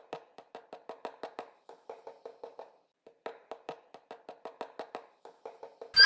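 An animal eating: quick runs of small crunching clicks, about six to eight a second, with short pauses between runs. Loud music cuts in abruptly at the very end.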